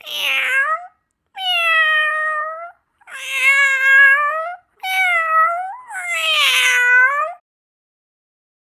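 Domestic cat meowing: a series of five long, drawn-out meows, one after another, the last two running together.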